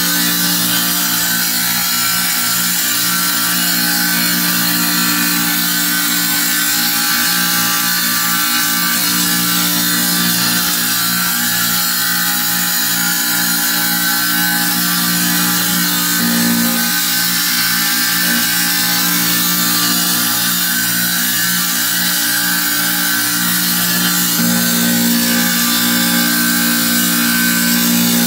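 Wet tile saw running steadily, its diamond blade grinding a stone held against it: a constant motor hum under a high grinding hiss.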